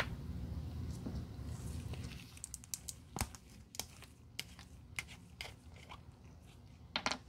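Ridged plastic screw cap being twisted off a plastic bottle of Angelus Matte Finisher: a run of small separate clicks and ticks from the cap and threads, with a louder short cluster of clicks near the end. A brief sharp noise, the loudest thing heard, comes right at the start.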